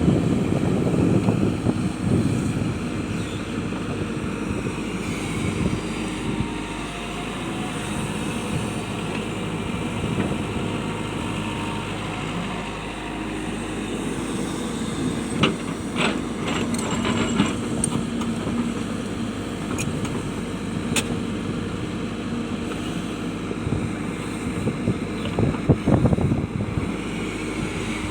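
Hitachi excavator's diesel engine running steadily, with sharp knocks and clanks from the work about halfway through and again near the end.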